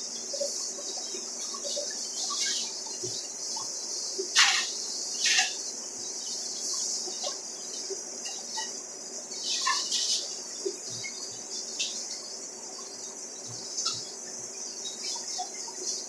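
Steady high-pitched insect chirring with scattered short chirps and a few quick calls that sweep downward from high to low, the loudest about four to five seconds in and again near ten seconds.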